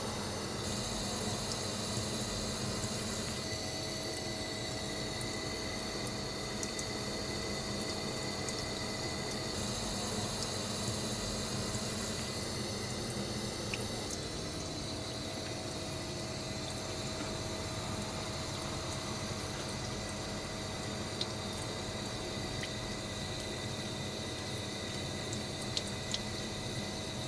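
Steady kitchen background of running water with a faint constant hum. A few small knife taps on the cutting board near the end.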